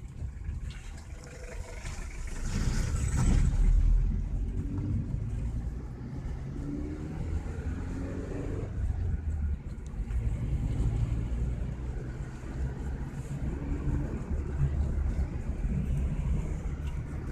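Car engine and road noise heard from inside a moving car: a steady deep rumble, with the engine note climbing in steps about six to nine seconds in.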